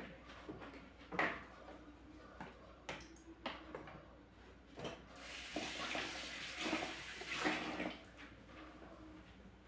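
Kitchen sink tap running with water splashing into the sink for about three seconds, starting about five seconds in. Before it come a few scattered knocks and clinks of things being handled at the sink.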